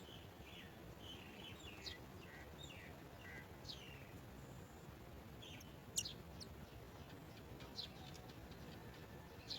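Birds chirping faintly around a nest: a quick run of short high chirps and falling notes, thinning out later, with a sharp click about six seconds in.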